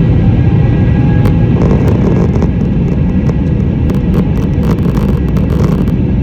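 Inside an airliner cabin during the takeoff roll: loud, steady rumble of the jet engines and the wheels on the runway. Sharp clicks and rattles begin about a second in and come more often toward the end.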